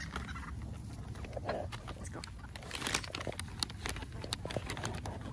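Chickens clucking softly while foraging, among many short clicks and rustles over a steady low rumble.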